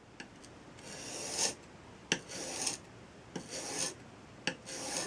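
Steel chisel bevel pulled across an oiled Norton fine India sharpening stone: four gritty scraping pull strokes, each begun by a sharp click as the edge is set down on the stone.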